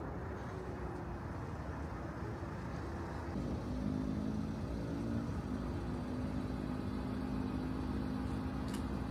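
A steady engine hum over a continuous background of noise. The hum comes in about three and a half seconds in and stays steady.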